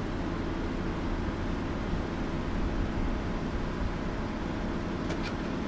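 A pickup truck's engine idling steadily.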